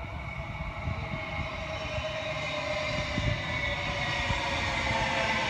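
Queensland Rail electric multiple-unit commuter train approaching, a whine of several steady tones growing steadily louder over a low rumble.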